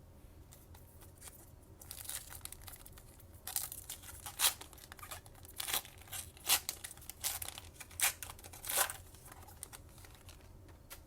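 A trading card pack's wrapper being torn open and crinkled, in a run of short, irregular rips and rustles with the loudest near the middle, stopping about a second and a half before the end.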